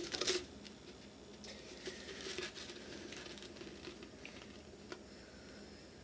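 Faint handling noise of a plastic 2-liter bottle: soft crinkling and rubbing as it is turned in the hands, louder for a moment at the start, with a light click about five seconds in.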